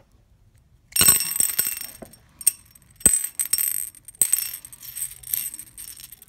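Round 8 mm pale green gemstone beads dropping off their strand into a small glazed ceramic dish. They click and rattle against the dish and against each other, with a high ringing from the dish. The clicking starts about a second in and runs on in irregular clusters as the loose beads are pushed around the dish.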